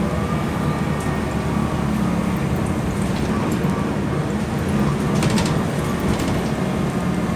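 Steady ride noise inside a moving vehicle: a low engine hum and road rumble, with a short rising whine right at the start.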